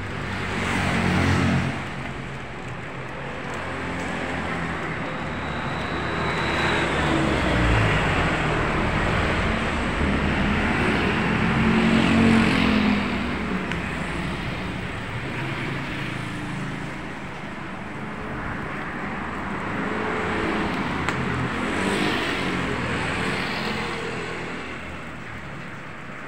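Road traffic passing close by: several vehicles go past one after another, the engine noise swelling and fading each time, loudest about twelve seconds in.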